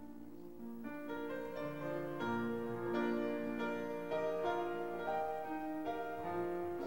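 Slow instrumental keyboard music, piano-like, with held chords and a melody moving note by note, growing louder about a second in. No singing.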